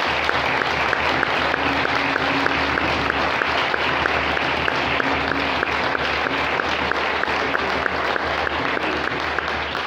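Crowd applauding steadily, with a faint even beat of some hands clapping in time running through it.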